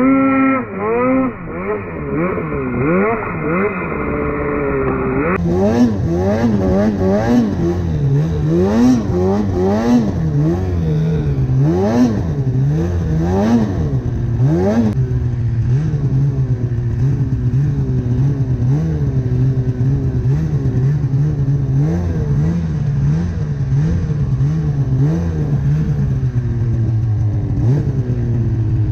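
Snowmobile engine revving up and down again and again as the throttle is worked over mounds of deep snow, then running more steadily with smaller rises and falls from about halfway.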